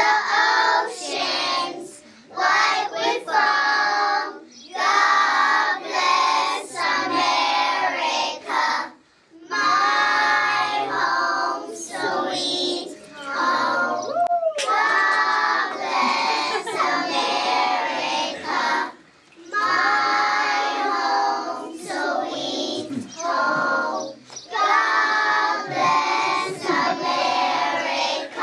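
A group of preschool children singing a song together, in phrases of a few seconds with short pauses for breath between them.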